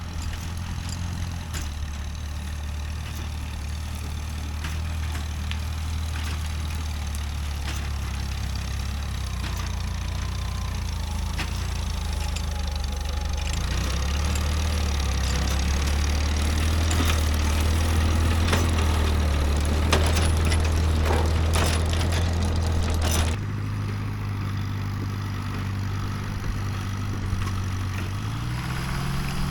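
Tractor engine running steadily under way, with a few rattling knocks about two-thirds of the way through. The sound changes abruptly about 23 seconds in, and the engine revs rise near the end.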